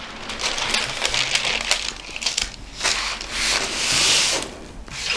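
Baking paper crinkling and rustling as it is handled, with one louder, longer rustle about four seconds in.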